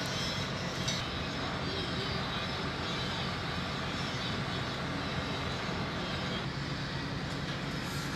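An engine running steadily at an even pitch: a constant low hum with no revving or change in speed.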